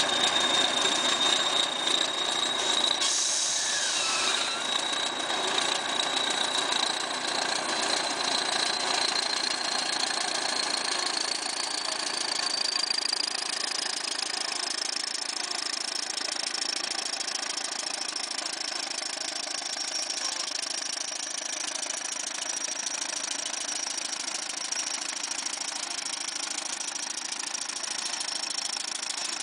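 Diesel engine of a ChTZ T-130M crawler bulldozer running under load with a rattling clatter as it pushes and packs chopped haylage. A thin high whine rises slowly in pitch over the first half, then holds steady.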